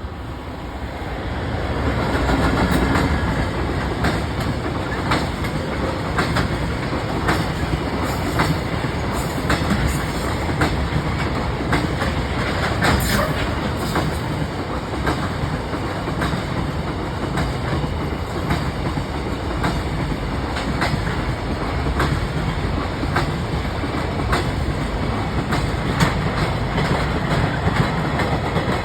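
Freight train hauled by an EF210 electric locomotive passing with its long string of Koki container wagons: a steady rolling rumble with repeated sharp wheel clicks over rail joints. The sound builds over the first two or three seconds, then holds steady.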